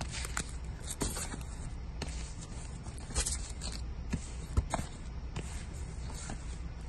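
Cardboard LP record jackets being flipped through one after another, scraping and slapping against each other in irregular taps, over a steady low hum.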